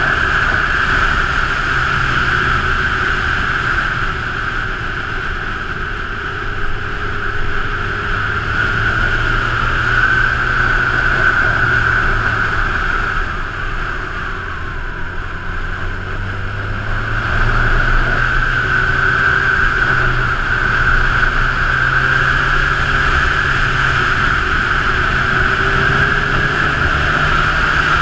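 Honda CB1000R's inline-four engine running while riding at road speed, with wind and road noise. It eases off around the middle, then pulls harder again.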